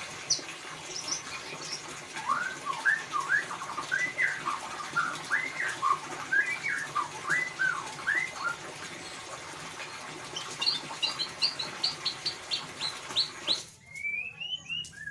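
White-rumped shama (murai batu) singing its 'ngeriwik' call: a run of quick rising whistled notes, then a fast series of short higher notes. A steady background hiss runs under it and cuts off suddenly near the end, leaving a few more rising notes.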